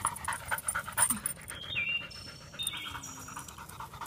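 Yellow Labrador retriever panting in quick, short breaths.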